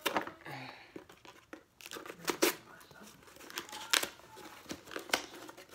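Beauty subscription box packaging being opened by hand: paper and plastic crinkling and tearing, with a few sharp snaps and clicks spread through.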